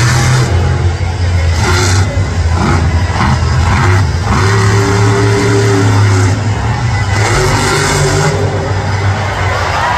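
El Toro Loco monster truck's supercharged V8 engine revving hard and dropping back as the truck drives the dirt floor and launches off a ramp near the end.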